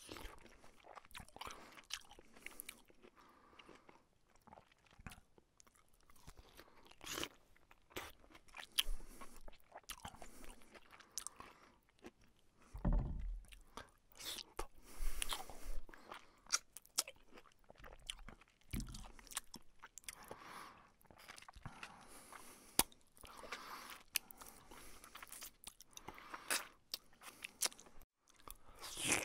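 Close-up eating of rice and fried fish by hand: irregular chewing and crunching with mouth clicks. A couple of dull low thuds come about halfway through and again a little later.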